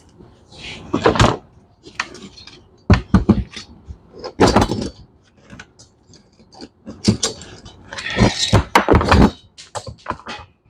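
Irregular knocks, clunks and short scrapes of metal engine parts and hand tools being handled on a workbench, in about half a dozen separate bursts.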